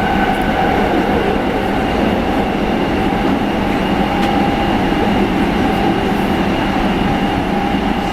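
Running noise inside a Nagoya Municipal Subway 6000-series car under way: the steady rumble of wheels on rail with a whine held at one steady pitch, the train running at an even speed.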